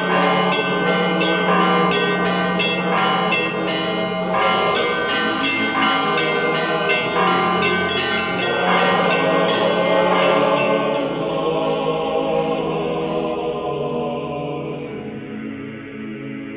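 Church bells ringing a rapid peal of overlapping strikes over a steady low tone, the strikes thinning and the ringing dying away near the end.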